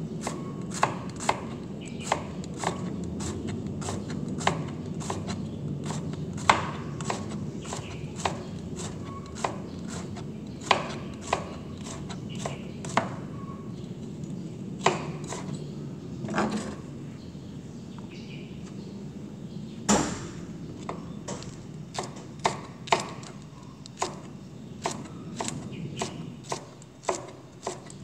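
Kitchen knife chopping bitter gourd (ampalaya) on a plastic cutting board: sharp, irregular knocks of the blade about one or two a second, with one harder knock about two-thirds of the way through, over a steady low background noise.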